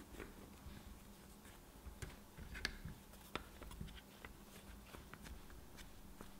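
Hands pressing and smoothing soft pizza dough into a metal mousse ring on a tray. The result is faint rustling with scattered small taps and clicks, the sharpest a little before and after the middle.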